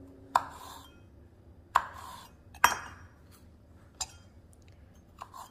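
Paring knife cutting the tough rib out of a softened cabbage leaf on a wooden cutting board: four sharp taps of the blade on the board, the first two followed by a brief rustle, then a few lighter taps near the end.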